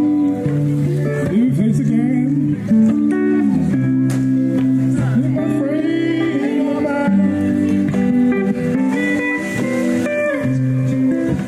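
Guitar playing a slow, bluesy tune with a voice singing along.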